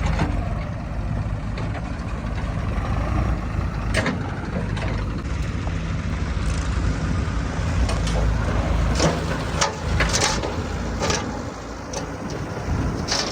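Heavy diesel machinery engine running steadily, with sharp metallic knocks now and then, most of them in the second half.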